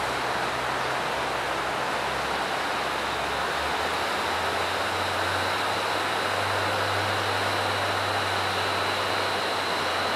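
Rushing river water: a steady, even roar of fast-flowing current.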